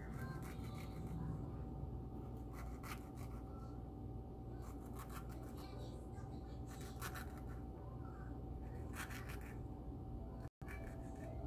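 Kitchen knife slicing a banana into pieces on a bamboo cutting board: short clicks and scrapes as the blade meets the board, in small clusters about every two seconds.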